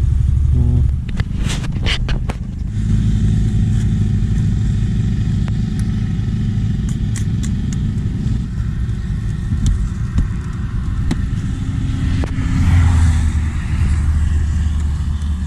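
Yamaha Ray ZR scooter engine idling with a steady low rumble. Several sharp knocks and clicks come about two seconds in, and a louder rustling swell near the end.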